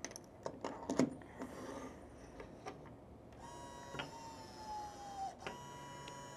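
A few light clicks and knocks as the cartridge and seating die are set in place. Then the small electric motor of an AMP arbor press whines steadily, its pitch sagging slowly under load as the ram pushes the bullet into a .308 case. It stops for a moment, then whines again at a steady pitch.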